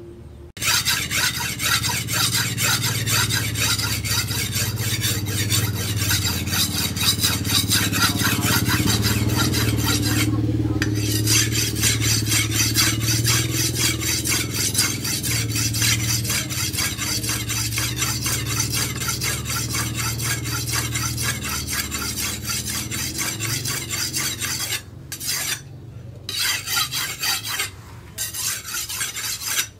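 Machete blade, forged from an old tractor disc plough, stroked rapidly back and forth on a whetstone: a dense, rhythmic scraping of steel on stone. It pauses briefly about ten seconds in and again a few times near the end.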